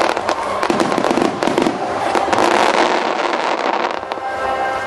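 Aerial fireworks shells bursting in quick succession, a dense run of bangs and crackling. Near the end the bangs thin out and music comes through.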